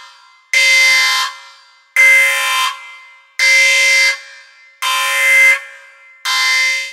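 Alarm horn sounding in repeated blasts, five in all, each about three-quarters of a second long and about a second and a half apart.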